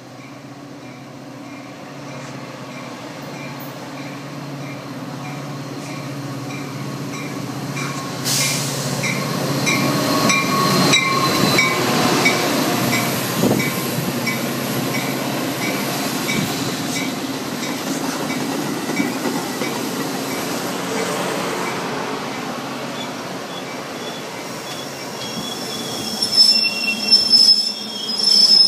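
Metra commuter train pulling into a station and braking to a stop: the rumble of the train grows louder as the locomotive and coaches roll past. High squeals from the wheels and brakes come near the end as it slows.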